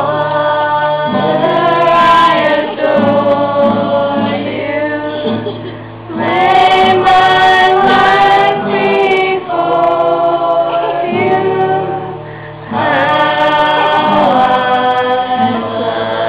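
A small group of voices singing a hymn together, in phrases with short breaths between them about six and twelve seconds in.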